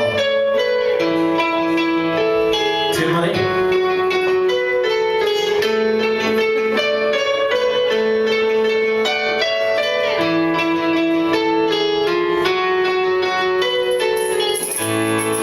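Band music led by guitars, a melodic passage of held notes changing every second or so, with a deeper bass note coming in near the end.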